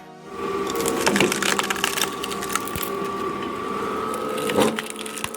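Log splitter forcing a log apart, with the wood cracking sharply about a second in and again near the end, over a steady machine whine.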